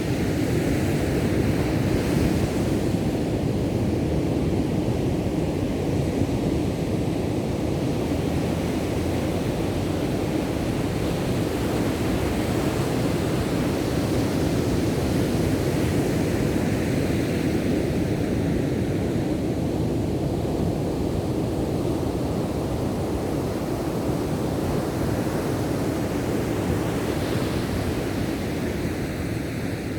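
Ocean surf: waves breaking and washing in, a steady rushing noise whose hiss brightens twice, near the start and about halfway through.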